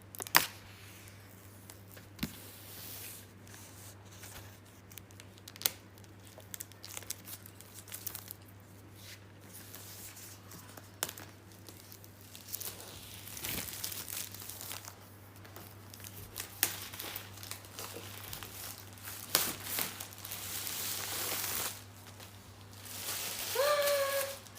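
Plastic packaging film being peeled and handled while a laptop box is unwrapped: irregular crinkling and tearing with small clicks and taps, growing louder in stretches toward the end.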